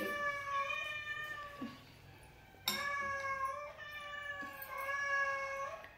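An animal's long, drawn-out calls, three in a row, each held at a fairly even high pitch for one to two seconds, with a short quiet gap after the first.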